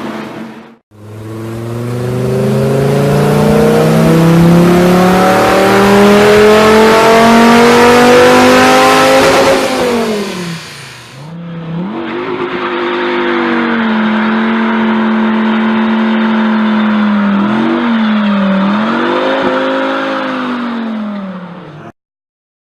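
V10 sports car engine accelerating hard, its pitch climbing steadily for about eight seconds and then falling away. After a cut, a V10 holds a steady note with a couple of brief dips and blips, then stops suddenly near the end.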